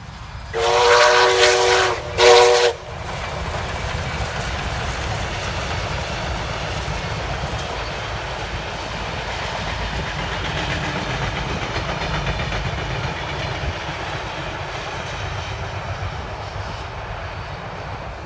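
A steam locomotive's whistle sounds twice, a long blast then a short one, as a double-headed steam train (locomotives 3526 and 5917) passes. The train's carriages then roll by with a steady noise of wheels on the rails, which eases off near the end as the last carriage passes.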